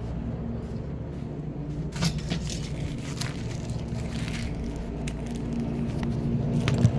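Steady low rumble of a car on the move, heard from inside, with a few scattered clicks and knocks, the clearest about two seconds in and another near the end.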